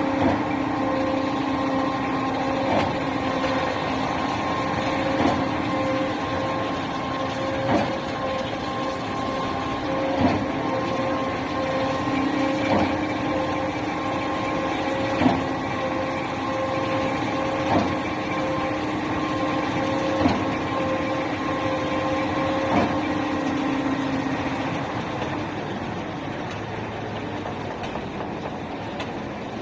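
Truck-mounted concrete pump running under a steady engine drone, with a sharp clunk about every two and a half seconds as the pump changes stroke. The clunks stop a little before the end, and the drone then drops lower.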